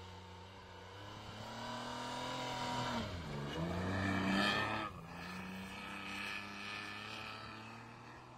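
Isuzu VehiCROSS V6 revving hard while drifting in snow: the revs climb, dip briefly, then rise to their loudest as the car slides past close by, break off sharply about five seconds in, and settle to a steadier note that fades. The engine has an odd, rough exhaust note because the front exhaust pipe (Y-pipe) has cracked.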